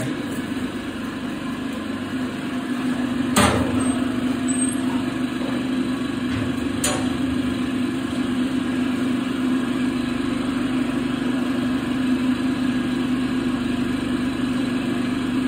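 Steady engine hum, like an idling motor, with two sharp metallic clanks of a metal gate: a loud one about three and a half seconds in and a lighter one about seven seconds in.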